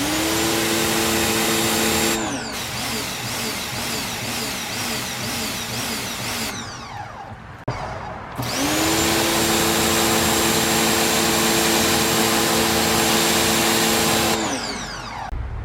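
Ryobi 1600 PSI electric pressure washer running, its motor and pump humming under the loud hiss of the water jet from a 15-degree nozzle. It starts at once, cuts out about two seconds in while a fainter hiss carries on, then starts again about eight seconds in and stops near the end. The wand is leaking and losing pressure.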